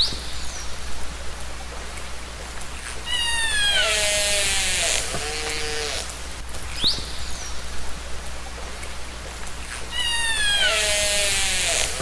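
Killer whale (orca) calls recorded underwater over a steady hiss: pulsed calls and a set of falling whistles, then a short rising chirp. The same call sequence comes round twice, about seven seconds apart, as a loop.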